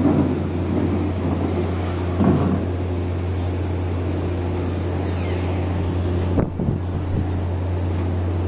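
Steady low electric hum with an even drone throughout, and a couple of brief low knocks about six and a half seconds in.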